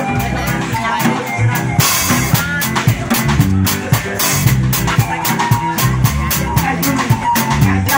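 Live band music: electronic keyboards played over drums keeping a steady beat, with a bass line, heard through PA speakers.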